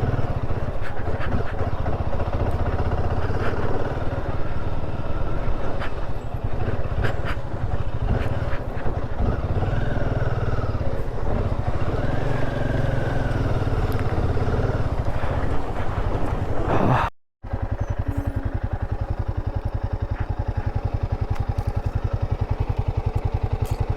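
Royal Enfield Himalayan 450's single-cylinder engine running with an even, steady beat. The sound drops out for a moment about two-thirds of the way through, then the same steady beat resumes.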